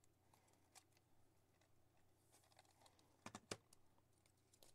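Near silence, with faint handling sounds of a watercolour paint set's cardboard packaging and paper colour chart. There is a pair of small clicks a little over three seconds in.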